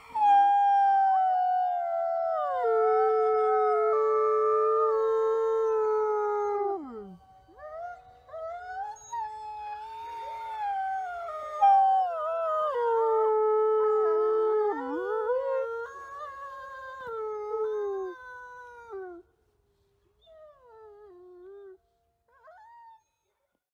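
Gray wolves howling. One long howl starts at once, holds its pitch, then drops off about seven seconds in. After a short gap, two wolves howl together in overlapping rising and falling tones, then break off into a few faint short howls near the end.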